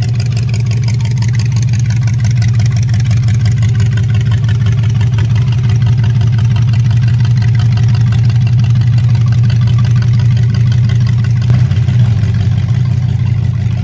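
Red rat-rod pickup's exposed engine running at low speed as the truck rolls slowly by, a loud, steady, low-pitched engine note.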